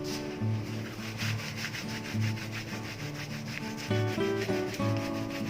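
Hands rubbing fresh bangun-bangun (Indian borage) leaves together in quick repeated strokes, a dry brushing hiss. The rubbing strips the fine soft hairs off the leaves.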